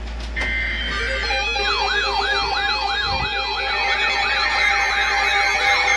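Yelping siren, its pitch sweeping up and down quickly, about two to three times a second, over steady held tones; the sweeps begin about a second and a half in.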